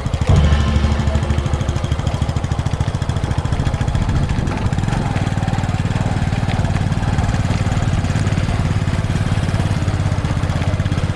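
An engine running steadily with a low, rapidly pulsing drone, a little fuller from about halfway through.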